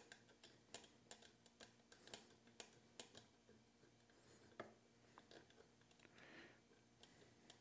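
Near silence with faint, scattered small clicks and taps as fingers loosen the screw on a tape dispenser's metering lever.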